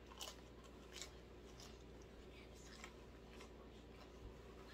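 Near silence with faint chewing of a bite of sauce-coated cheese pizza: a few soft, irregular mouth clicks.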